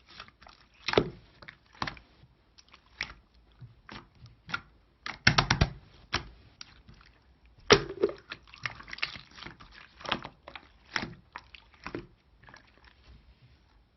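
Irregular close-up clicks and crunches, with a quick flurry of them about five seconds in and a sharp one near eight seconds.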